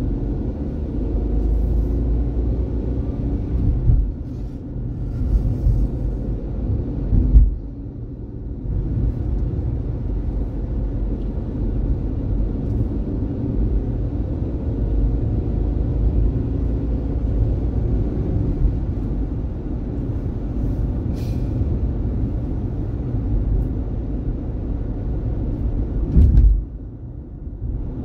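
Low, steady road and engine rumble of a car driving, heard from inside the cabin. There are a few short louder thumps: about four seconds in, about seven seconds in, and near the end.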